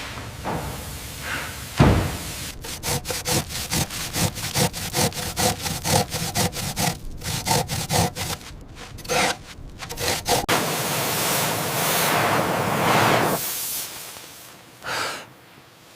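A rapid run of rasping strokes, about four a second, then a steady rushing noise and one short burst near the end.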